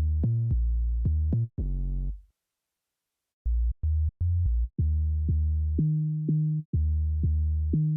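Solo synth bass playing a dembow bass line: deep notes in a syncopated pattern with no drums, breaking off for about a second midway and then coming back in.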